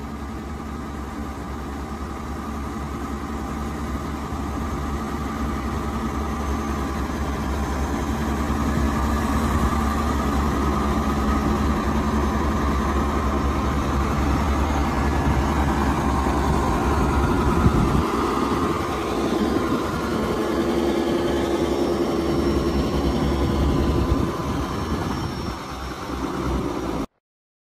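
Heavy diesel engine running steadily, growing louder over the first several seconds; its low rumble drops away about two-thirds of the way through, and the sound cuts off suddenly near the end.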